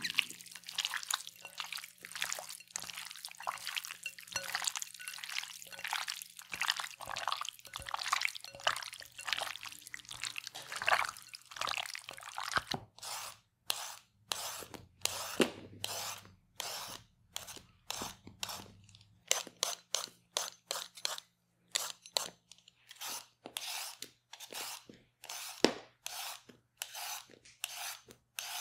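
Hands squishing raw chicken pieces in a sticky honey, soy and spice marinade in a glass bowl: a close, continuous wet squelching. About halfway through, this changes to a Y-peeler scraping strips off a raw carrot in regular rasping strokes, about two a second.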